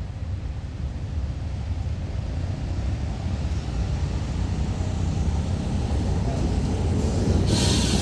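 Nohab diesel railcar approaching, its engine and running gear making a low rumble that grows steadily louder. A short burst of hissing air comes near the end.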